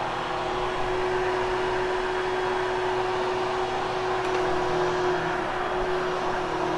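Hoover HushTone vacuum cleaner running steadily over carpet: an even motor hum with one clear steady tone, grooming the pile after cleaning.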